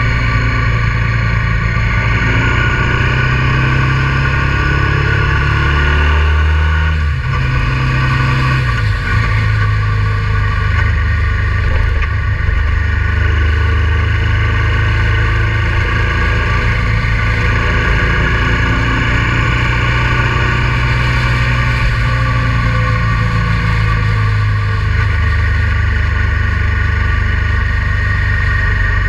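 Honda Transalp 650's V-twin engine running under way on the road. About seven seconds in the engine note rises, breaks off briefly and drops to a lower pitch, as at a gear change, then holds steady.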